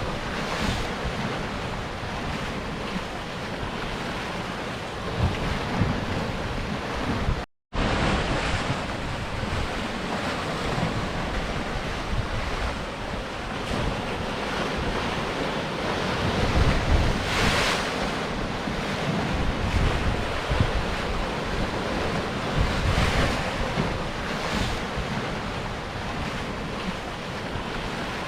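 Sea surf breaking and washing against rocks, a steady roar of water that swells with each wave, with wind buffeting the microphone in low rumbles. The sound drops out completely for a split second about a quarter of the way in.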